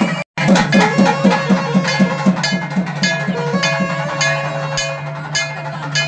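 Temple ritual music: a drum beaten in a fast, steady rhythm of about four strokes a second, with bells ringing above it. The sound drops out briefly just after the start.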